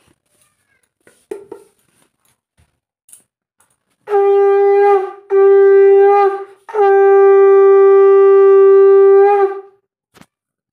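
Conch shell (shankha) blown three times in Hindu puja: two short blasts and then a long one of about three seconds, each a loud, steady horn-like note.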